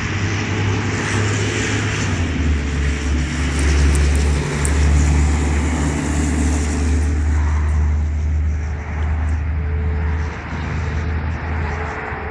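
Road traffic running past, a loud low rumble, while a distant outdoor warning siren sounds as a faint steady tone.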